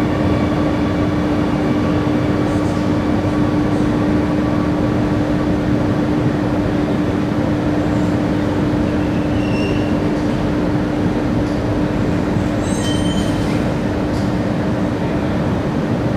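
Singapore MRT Circle Line train running through a tunnel, heard from inside the car: a steady rumble of wheels and rails with a steady electric hum underneath. A few faint short squeaks come in the second half.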